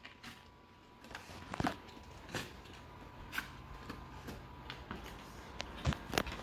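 Faint, scattered taps and scrapes of a small dog nosing and pawing at a cardboard box, with two louder knocks near the end.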